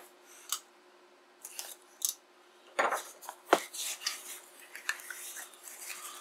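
A sealed cardboard software box being handled and opened: scattered sharp taps and scrapes, the loudest two close together about three seconds in, then lighter rustling of cardboard.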